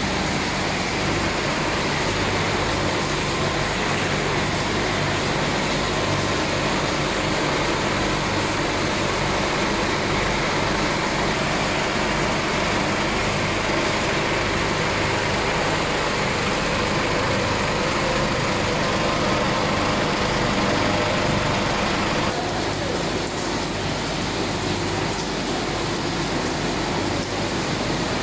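Steady factory machinery noise from a snack frying and conveying line: a dense even roar with a low hum from motors, conveyors and fryer exhaust. The sound changes slightly about 22 seconds in, the upper part dropping a little.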